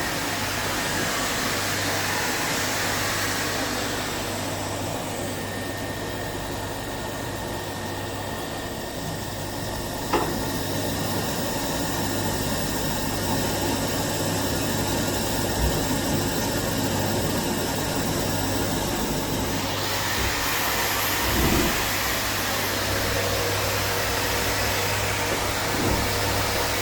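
Steady hiss with a constant low electrical hum from welding equipment, its high hiss easing for a stretch in the middle and returning about twenty seconds in. One sharp click about ten seconds in.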